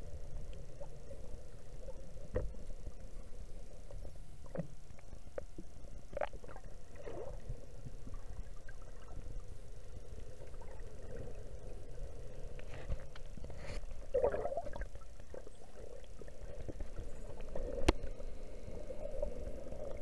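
Underwater rumble with a diver's exhaled regulator bubbles gurgling in bursts every few seconds, and a few sharp clicks.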